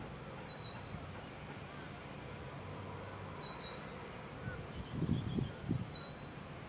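Siberian rubythroat giving three short, descending whistled call notes, about three seconds apart, over a steady high insect-like whine. A few low thumps come near the end.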